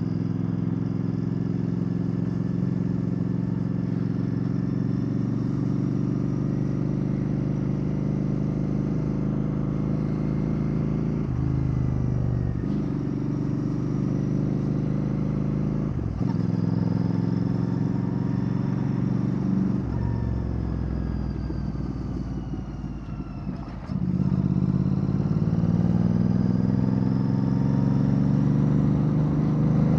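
Royal Enfield Bear 650's parallel-twin engine breathing through an aftermarket Red Rooster Performance exhaust, running at a steady note at first. The note shifts several times, then rises and climbs in pitch from a little after the middle as the bike accelerates.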